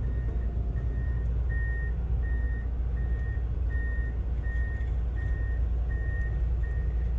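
Excavator's travel alarm beeping steadily, about one and a half beeps a second, over the steady low drone of its diesel engine as the machine tracks slowly off the trailer.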